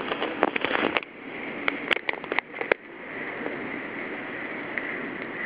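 Close knocks, clicks and rustling as a cat rubs its head and fur against the phone and its microphone, stopping about three seconds in. A steady hiss of background noise follows.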